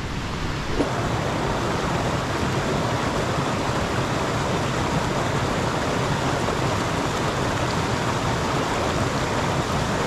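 Waterfall: falling water rushing steadily and evenly.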